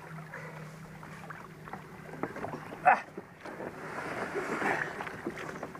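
Water sloshing and lapping against a plastic sit-on-top kayak's hull in shallow water, with scattered small knocks and one sharp knock about three seconds in. A steady low hum runs under the first half.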